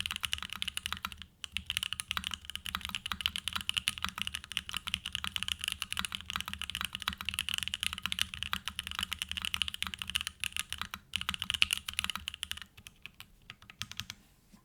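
Fast, continuous typing on a Mode Tempo mechanical keyboard with a carbon-fibre plate, hand-lubed Gateron Box Pink linear switches and GMK keycaps. The keystrokes pause briefly just over a second in, then thin out to a few scattered presses near the end.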